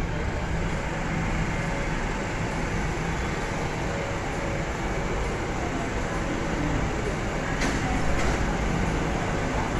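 MTR Kwun Tong line C-train pulling into the platform and slowing to a stop: steady rumble of wheels and running gear, with a low hum that fades after the first few seconds. A few short clicks come near the end.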